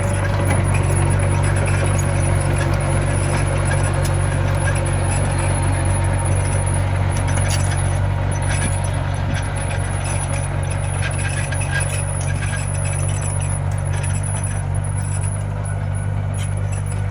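Komatsu mini bulldozer's diesel engine running steadily at an even speed, with light metallic clinks scattered through.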